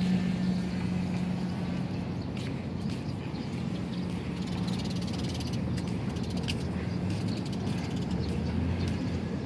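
Roadside street ambience: a steady low hum over a haze of traffic noise, with scattered light clicks.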